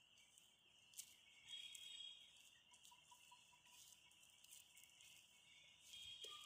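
Near silence: a faint, steady high-pitched chirring in the background, a little louder in stretches, with a few faint taps.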